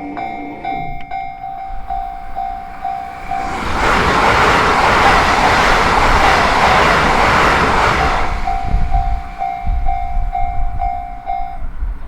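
Level-crossing alarm sounding in fast repeated electronic tones as a Yamagata Shinkansen train runs through the crossing. The train makes a loud rush of wheel and air noise for about four seconds, drowning out the alarm. The alarm then stops near the end, as the crossing clears after the train.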